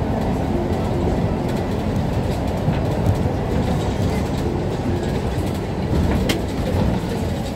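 Mercedes-Benz Citaro C2 city bus under way, heard from inside the cabin: a steady low rumble of engine and road noise, with a sharp click about six seconds in.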